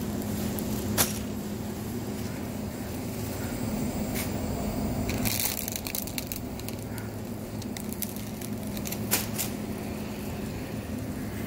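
Steady low hum of a supermarket produce aisle, with a few sharp clicks and a short rustle about five seconds in as a shopping cart is pushed along.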